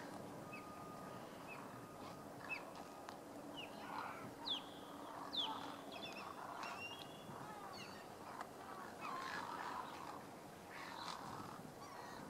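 A flock of great egrets squawking at each other in short, harsh croaks, the calls coming thickest near the end. Brief, high, sharp calls are scattered among them, the loudest about halfway through.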